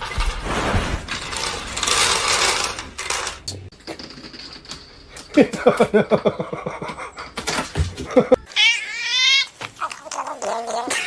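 Domestic cat vocalizing: a run of rapid, pulsing calls about halfway through, then a high wavering meow and a shorter lower call near the end, after a noisy start.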